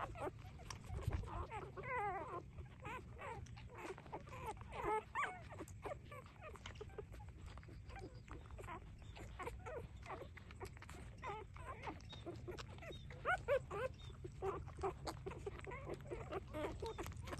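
Newborn puppies squeaking and whimpering as they nurse: many short, high, wavering cries scattered throughout, the loudest about 13 seconds in, over a patter of small clicks from suckling.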